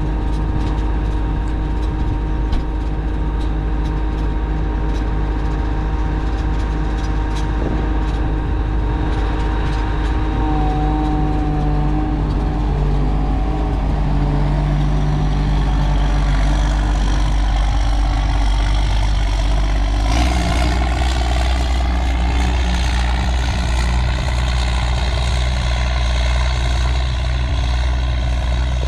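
A heavy vehicle engine running steadily. About twenty seconds in, the low engine note steps up and a higher whine rises.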